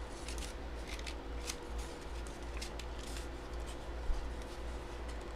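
Packaging being opened and handled by hand: scattered light rustles and clicks of paper or card, with a sharper click about four seconds in.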